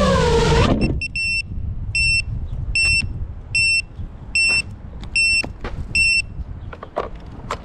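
FPV freestyle quadcopter's motors whining with a wavering pitch, then cutting off before the first second is out. A short high electronic beep then repeats seven times, about one every 0.8 s, with a few light handling knocks near the end.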